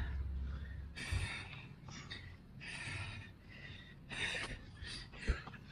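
Heavy, gasping breaths of a man exerting himself through a long set of burpees, with a single thump about five seconds in.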